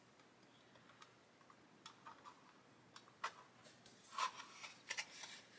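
Faint, scattered clicks and taps of small plastic model-kit parts and clamps being handled and set in place. There are a few single clicks, then a quick cluster of them near the end.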